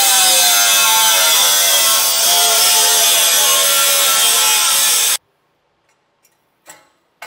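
Angle grinder cutting through a steel frame-guard bracket: a loud grinding whine whose pitch wavers as the disc bites, cutting off suddenly about five seconds in. A couple of light knocks follow.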